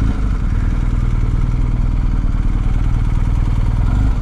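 BMW R1250's 1254 cc boxer twin idling steadily.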